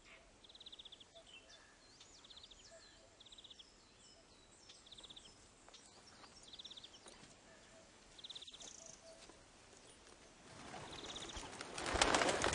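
Forest ambience with songbirds: one bird repeating a short rapid trill about every second and a half, among scattered high chirps. Near the end a rustling with footfalls on leaves and undergrowth swells and becomes loud.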